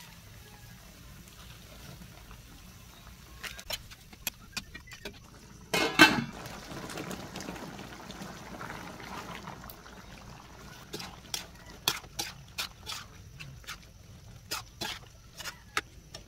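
Diced potatoes and carrots drop from a bowl into a wok of saucy ground pork with a loud wet splash about six seconds in, followed by a few seconds of bubbling. Later a metal slotted turner knocks and scrapes against the wok in a run of sharp clicks as the mixture is stirred.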